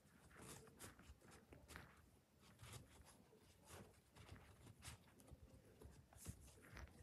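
Near silence with faint, scattered clicks and rustles from handling an iPad mini and its new case.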